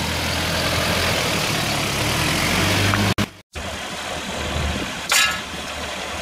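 Vehicle engines idling, a steady low hum under outdoor noise, with a short high-pitched tone about five seconds in. The sound drops out for a moment a little after three seconds in.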